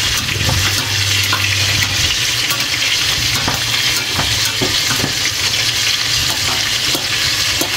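Pot of laing, taro leaves in coconut milk, simmering with a steady sizzling hiss, while a metal spoon clicks and scrapes against the stainless-steel pot as the leaves are pressed down.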